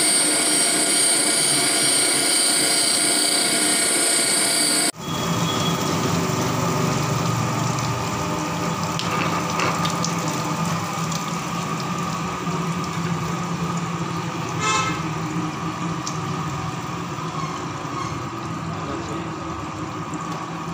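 Crankshaft grinding machine regrinding the worn journal of a submersible motor rotor under a flood of coolant: a steady whine with many high tones. About five seconds in it cuts abruptly to a lower, steady machine hum with running coolant that slowly gets quieter.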